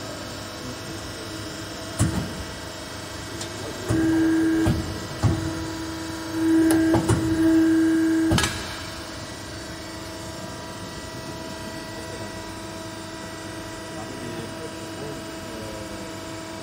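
Hydraulic busbar punching machine running with a steady hum that gets louder twice, about four seconds in and again for about two seconds from six and a half seconds in, as the punch and die work the copper busbar. Several sharp metallic knocks fall among these loud spells.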